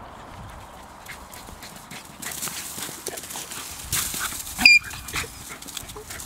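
American Hairless Terriers scampering and scuffling together over dry leaves and sand, their paws making a patter of short rustles, with one brief high-pitched yip about three-quarters of the way through.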